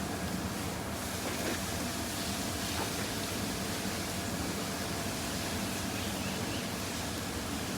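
Steady background noise, an even hiss and hum with no distinct events.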